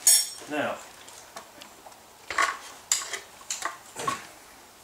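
A bright metallic clink, then several separate sharp clinks and knocks about half a second apart as a Husqvarna 324L string trimmer is lifted and tilted: its fuel filter knocking around loose inside the fuel tank.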